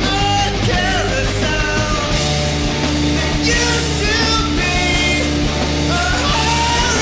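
Loud post-hardcore rock music from a full band.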